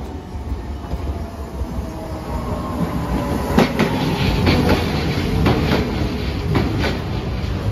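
A Hiroden streetcar approaching and passing close by. A faint whine falls steadily in pitch over a low rumble. From about halfway in comes a run of sharp clacks in pairs as its wheels cross the rail joints.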